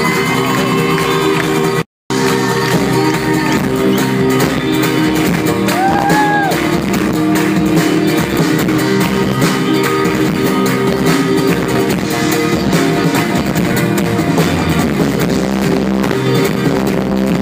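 Live rock band playing loudly: electric and acoustic guitars over drums, recorded from among the audience. The sound cuts out for a split second about two seconds in.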